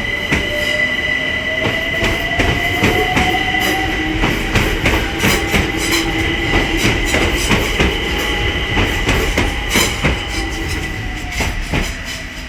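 London Overground Class 378 electric multiple unit pulling away. Its traction motors whine, rising in pitch over the first few seconds, holding, then falling away near the end, over a steady high-pitched squeal and wheels clicking over rail joints.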